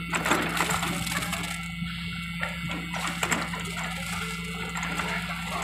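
Hand tools scraping and tapping on wet concrete as it is levelled in the formwork, mostly in the first second and again around three seconds in, over the steady low hum of an engine.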